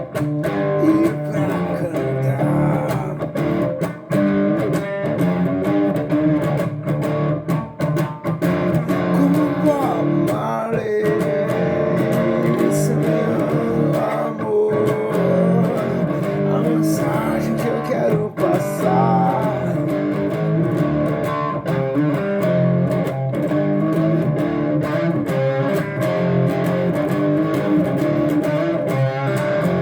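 Music played on guitar, with plucked notes running steadily throughout.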